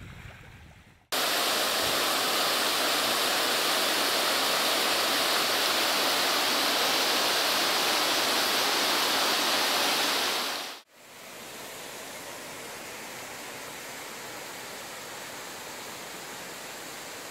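Waterfall cascading over rock: a loud, steady rush of falling water that starts suddenly about a second in. It cuts off abruptly about eleven seconds in and is followed by a quieter, steady rush of the falls heard from further off.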